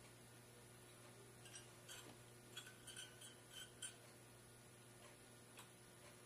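Faint light ticking of a jeweler's saw blade stroking through a gold ring shank, a short run of strokes in the middle, over a steady low hum.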